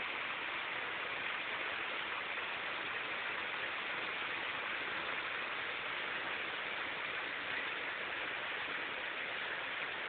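Heavy rain falling steadily on a concrete courtyard and garden plants: an even, unbroken hiss.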